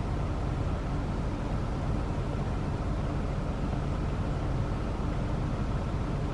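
Steady low rumbling background noise, even throughout, with no bird calls or other distinct sounds standing out.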